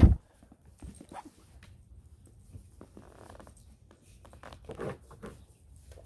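Newfoundland dog nosing and pawing at a raised mesh dog cot to reach a treat underneath: quiet, scattered scrapes and rustles against the cot's fabric.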